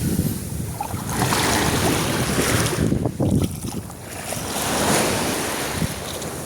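Sea waves washing onto a beach, the surf swelling twice, with wind rumbling on the microphone.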